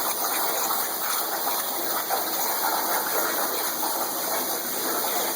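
Plasma torch cutting under water: a steady gushing, bubbling rush from the arc and gas breaking the surface. Several faint, steady high-pitched tones sit above it.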